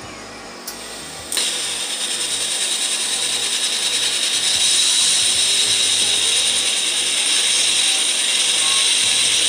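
Arc welding: the arc strikes about a second and a half in and then crackles steadily and loudly as a bead is run.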